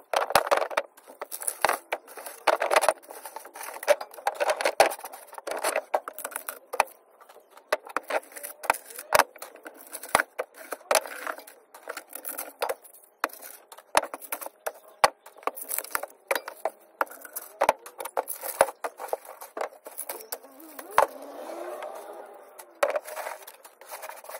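Aluminium-armoured power cable and loose aluminium armour wire strands being handled on a wooden bench: an irregular clatter of sharp clicks, knocks and scraping of the stripped wires.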